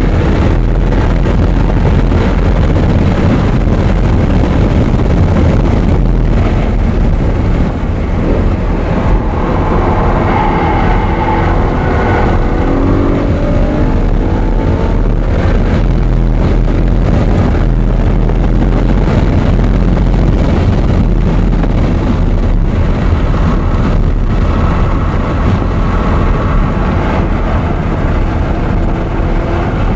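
Audi R8 being driven hard on a racetrack: the engine runs continuously under heavy rumble and wind noise. Its pitch climbs and falls about a third of the way in and again near the end.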